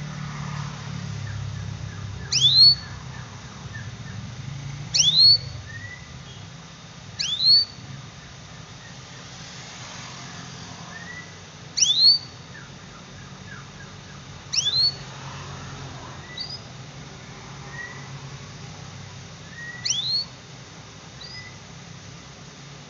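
Young domestic canary giving loud, sharp 'cuit' calls, six times at irregular intervals of a few seconds. Each call is a quick falling whistle with a short note after it, with fainter short chirps in between.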